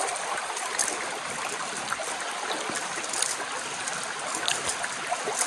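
Shallow rocky stream running: a steady rush of flowing water with faint ticks mixed in.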